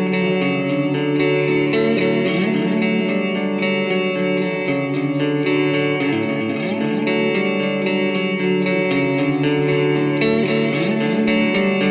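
Instrumental music: electric guitar played through effects, sustained chords with some sliding notes.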